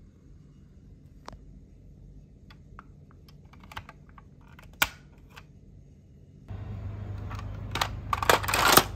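Small clicks and taps of die-cast toy coach buses being handled on a tile floor, with one sharper click about five seconds in. About six and a half seconds in, a low steady hum comes in, then a quick burst of clattering as the toy bus is lifted among other toy vehicles.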